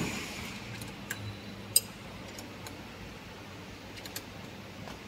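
Stainless steel elbow pipe and valve fittings of a filling machine being handled by gloved hands: a soft knock at the start, then scattered light metallic clicks and ticks, the sharpest just under two seconds in, over a faint steady hum.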